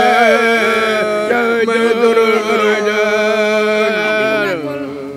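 A group of singers chanting a Yolŋu manikay (clan song) on long held notes; near the end the voices slide down in pitch and the song fades out.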